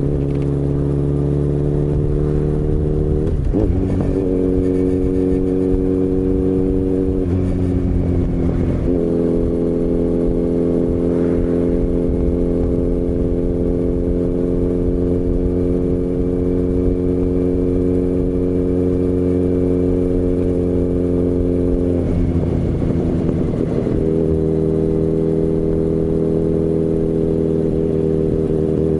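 Kawasaki Z900RS inline-four running through a MAVERICK aftermarket slip-on silencer while the bike is ridden. The engine holds a steady note, which breaks briefly and changes speed three times: a few seconds in, around a third of the way through, and about three-quarters of the way through.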